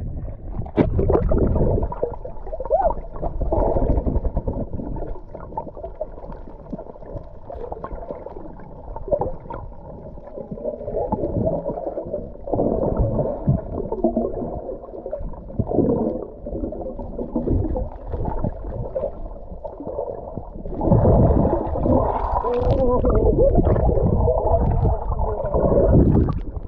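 Muffled water noise heard through an underwater camera: sloshing and gurgling of moving water, growing louder for the last few seconds.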